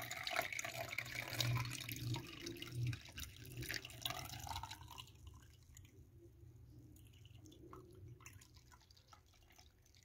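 Kombucha being poured from a glass jug through a woven cloth strainer, splashing and trickling onto the cloth to strain off the scoby film. The pour thins to a faint dribble about halfway through.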